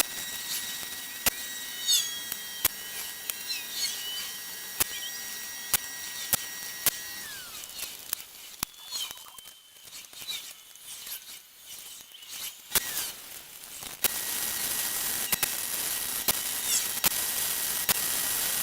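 Scattered light metal clicks and rattles of a chainsaw's chain and bar being handled as the chain is worked off for sharpening.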